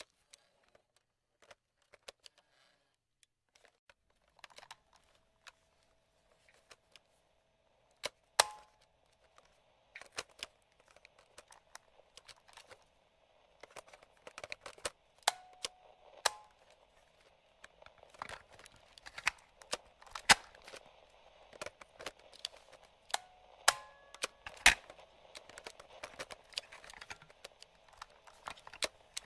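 Hand-worked controls of a vintage radio and cassette recorder: a string of sharp plastic clicks from slide switches and buttons, sparse at first and much busier after about ten seconds. Under them runs faint radio static, with a steady tone and a few short whistling tones.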